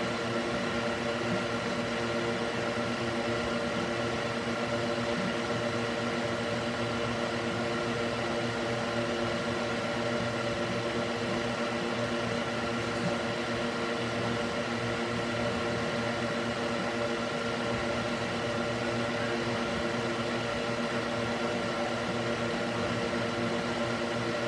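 Electric cooling fan mounted in a wooden box, running steadily: an even whir of rushing air with a steady multi-tone motor hum.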